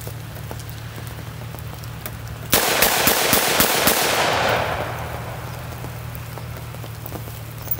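.357 Magnum double-action revolver fired six times in quick succession, starting about two and a half seconds in, the shots running together within about a second and a half and followed by a short trailing echo.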